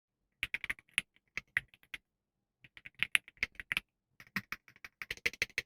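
Keys of an E-Yooso Z68 mechanical keyboard being typed on, with sharp key clicks coming in three runs separated by short pauses, the last run the quickest.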